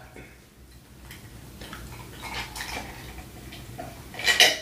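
Ice cubes clinking in a stemmed glass as it is handled and tipped up for a drink, with faint scattered clinks and a louder clatter of ice a little after four seconds in.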